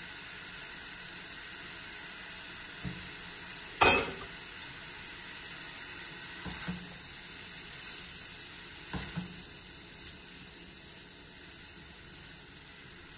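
Chicken and vegetables sizzling steadily in a stainless steel pan while a spatula stirs them, with a few utensil knocks against the pan, the loudest about four seconds in.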